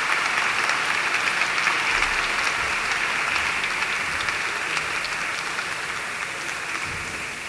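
Audience applauding as a speaker is welcomed to the podium, the clapping slowly dying down toward the end.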